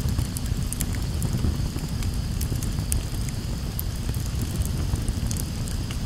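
Campfire crackling: scattered sharp pops and snaps over a steady low rumble.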